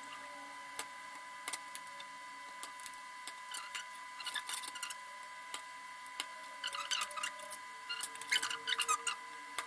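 Small clicks and taps of tools and parts handled on a workbench, coming in clusters, over a faint steady high whine.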